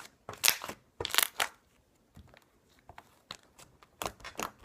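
Slime being squeezed and poked by hand, giving off sharp clicking and crackling pops in quick clusters, thickest in the first second or so and again near the end.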